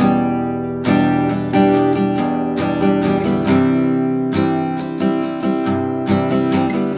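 Background music: an acoustic guitar picking a melody, each plucked note ringing and fading.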